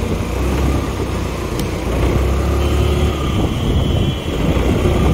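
Motorcycle riding along a road, its engine running under a steady low rumble of wind on the microphone.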